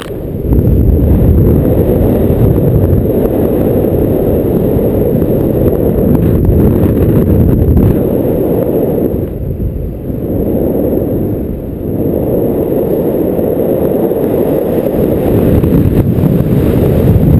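Wind buffeting on a camera microphone in paraglider flight: a loud, steady low rushing that eases briefly twice a little past halfway.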